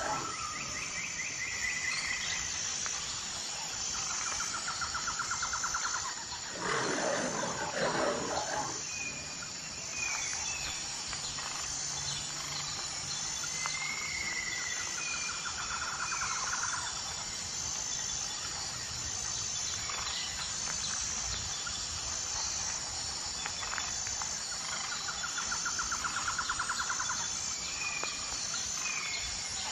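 Wild outdoor ambience: a steady, pulsing high insect drone, with scattered short bird chirps and a rapid trill that comes three times, about ten seconds apart. A short, louder burst of noise about seven seconds in.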